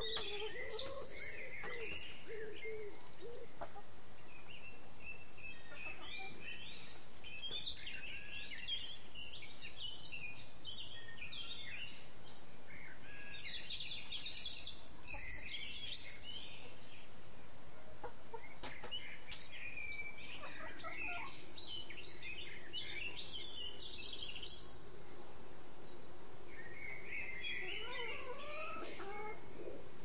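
Birds chirping and twittering in repeated bursts of high, quick calls, with a low cooing call at the very start and a low steady tone in the second half.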